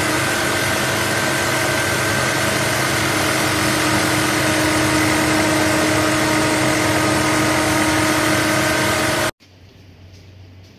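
Industrial sewing machine stitching hair into wefts, running at a constant speed with a loud, even whir and hum. It cuts off abruptly near the end.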